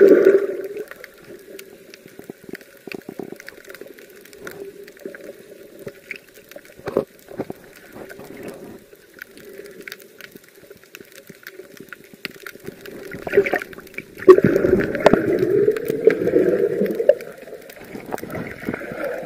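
Muffled underwater sound from a camera in a waterproof housing: water gurgling and sloshing around the housing, with scattered small clicks. It swells louder right at the start and again for a few seconds about three-quarters of the way through.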